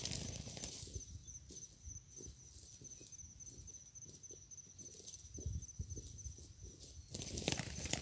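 Spotted doves on dry leaf litter: a burst of wing flapping and scuffling at the start, soft rustling and pattering of a dove moving about in the leaves and twigs, then more wing flapping near the end as a dove flies in.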